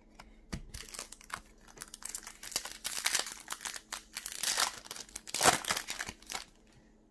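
Foil wrapper of a Pokémon card booster pack being torn open and crinkled by hand as the cards are pulled out: a run of rapid, crackly crinkles, loudest about five and a half seconds in.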